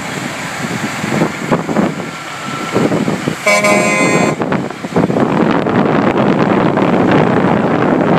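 A truck's air horn gives one short blast, under a second long, about three and a half seconds in, over the steady running of big trucks rolling by at walking pace. After it the engine and wind noise grow louder as a Peterbilt prime mover passes close.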